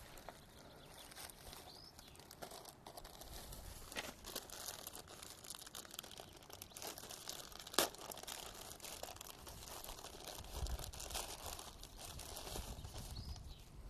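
Clear plastic packaging bag crinkling and rustling as it is handled and opened, in irregular crackles with one sharper crackle about eight seconds in.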